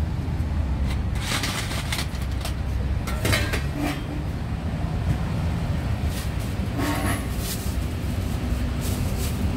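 Street traffic with a steady low rumble, broken by a few brief clatters about a second and a half, three and a half and seven seconds in.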